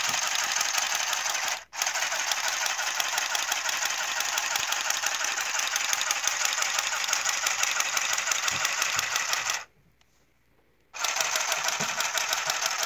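Golden Spike cordless handheld sewing machine running and stitching along a fabric hem, a fast, even clatter. It stops for an instant about two seconds in and for about a second near the end, then starts again.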